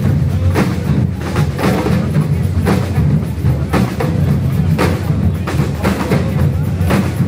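Street percussion band of djembes and snare drums playing a driving rhythm together, a dense low drum pulse under sharp accents that hit about once a second.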